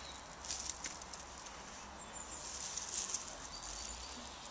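Breath blown in long puffs into a dry-grass tinder nest holding a glowing ember, with faint crackling and rustling of the grass as the ember is blown up into flame.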